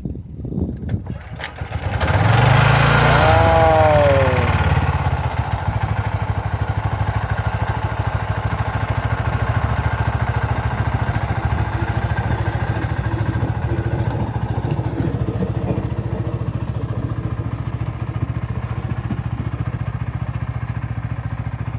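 A boat's engine comes up loud about two seconds in, its pitch falling away, then settles into steady running with a rapid, even pulse.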